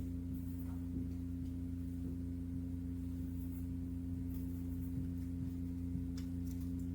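Steady low hum with two fixed tones that hold unchanged throughout, with a few faint ticks now and then.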